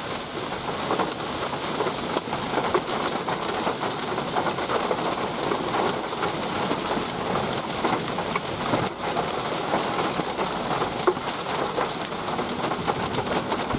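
Torrential wind-driven rain from a supercell thunderstorm beating steadily on a car, a dense unbroken hiss of drops.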